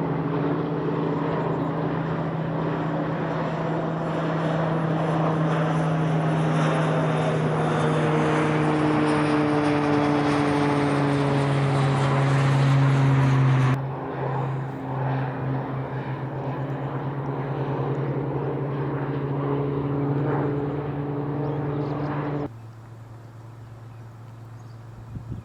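Propeller engines of a firefighting air tanker droning steadily, the pitch shifting slightly as the aircraft passes. The sound cuts off sharply about fourteen seconds in and again about twenty-two seconds in, leaving a quieter steady hum near the end.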